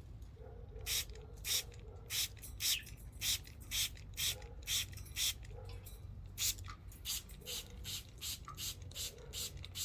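Trigger spray bottle of warm water being pumped in quick squirts, about two a second, with a short pause a little past halfway through.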